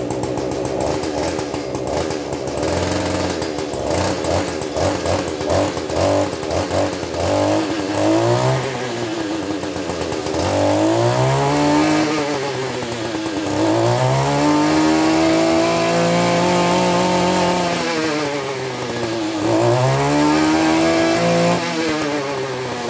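Kioritz RME2620 backpack brush cutter's two-stroke engine running unloaded while its throttle is worked. It gives quick short blips for the first several seconds, then three long revs that each climb to a steady top speed, hold for a few seconds and drop back to idle. This new-generation model has a speed limiter that stops it screaming at no load.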